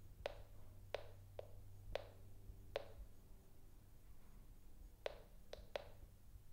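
Termite Tracker acoustic-emissions detector giving sharp single clicks at irregular intervals, eight in all, with a gap of about two seconds in the middle. Each click is the device picking up termite activity inside the piece of wood it is set on.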